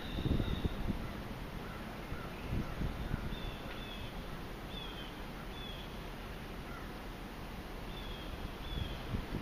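Birds calling outdoors: short, high, falling chirps repeating every second or so. Breezy wind buffets the microphone in low gusts, strongest about half a second in.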